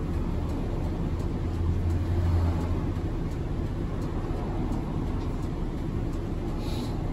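City bus engine running under way, heard from inside the bus as a steady low drone with road noise. The drone swells about two seconds in, then eases off.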